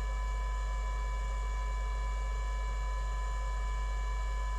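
Steady electrical mains hum with a few thin, steady higher-pitched tones over it, unchanging throughout.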